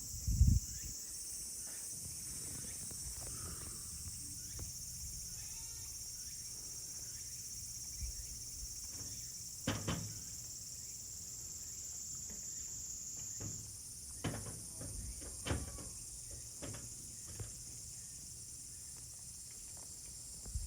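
Steady high-pitched insect chorus, with a few scattered soft knocks and thumps.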